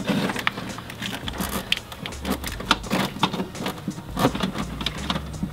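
Irregular clicks, taps and light rattles of a heavy red wiring cable and metal hardware being handled and fed through an engine bay.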